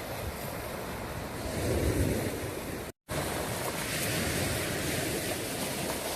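Sea waves washing, swelling about two seconds in, with wind on the microphone. The sound cuts out for a split second about halfway.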